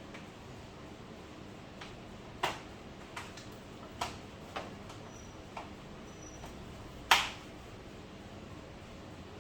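Sharp clicks and taps of small hard objects being handled during a TV teardown: about seven separate knocks over several seconds, the loudest one about seven seconds in, over a steady faint hiss.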